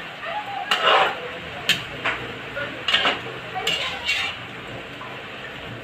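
A metal spoon or ladle stirring chicken adobo in a cooking pot, clinking and scraping against the pot about six times in the first four seconds.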